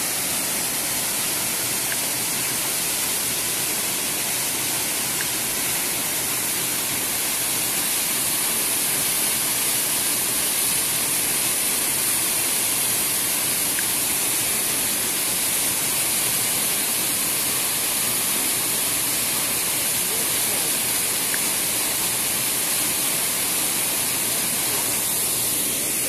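Tall, narrow waterfall plunging down a rock cleft: a steady, unbroken rush of falling water.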